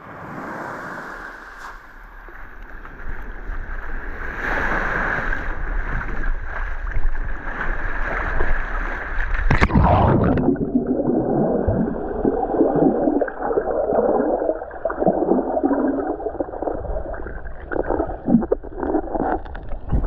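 Sea water splashing and sloshing around the microphone as the camera is taken into the sea. About halfway through there is a sharp knock, and the sound turns dull and muffled as the microphone goes under the water surface, giving underwater sloshing.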